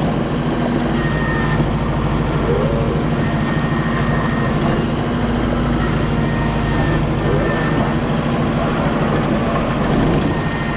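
Large vehicle engine running steadily at a constant speed, a low even drone with no change in pitch.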